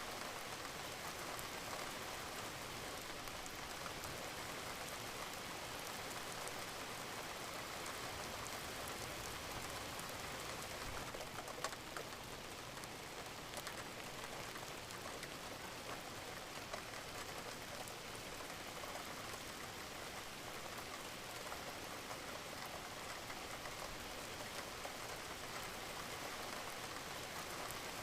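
Steady rain falling, a dense patter of many small drops hitting water and nearby surfaces, with an occasional single louder drop.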